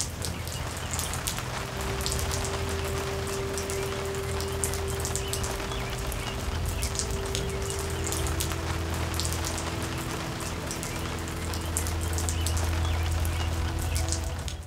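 Steady rain, many drops pattering, over low sustained droning tones; it all cuts off abruptly at the end.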